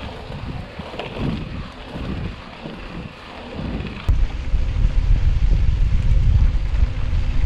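Mountain bike riding a dry dirt track: tyres on dirt and bike rattle, with wind on the camera microphone. About four seconds in the sound switches suddenly to a much louder, steady low wind rumble.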